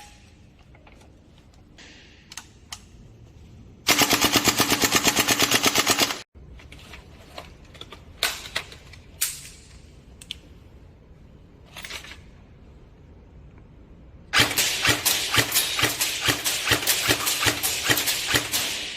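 Airsoft gun firing on full auto in two long bursts, the first about two seconds long and the second about four and a half seconds, with a few single shots and clicks in between.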